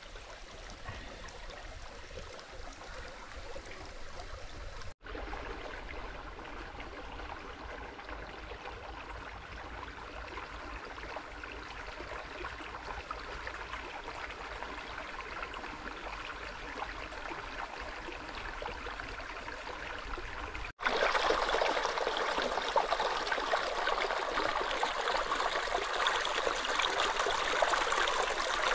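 Shallow forest stream running over rocks, a steady rush of water. It cuts out for a moment twice, about five and about twenty-one seconds in, and is louder after the second break.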